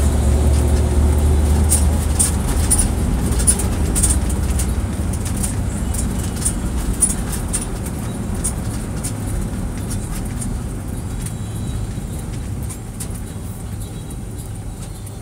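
Car driving along a city street, heard from inside the cabin: a steady low rumble of engine and tyre noise that is strongest in the first couple of seconds and slowly eases, with scattered faint clicks.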